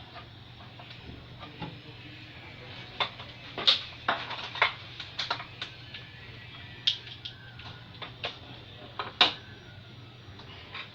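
Irregular sharp clicks and knocks of hard plastic and metal parts being handled, as when a printer is taken apart or put back together, over a steady low hum.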